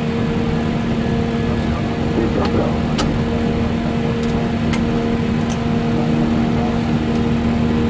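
Steady cockpit noise of an Airbus airliner: a constant rushing with a steady hum from the engines and aircraft systems. A handful of sharp clicks in the middle, as cockpit switches and controls are worked.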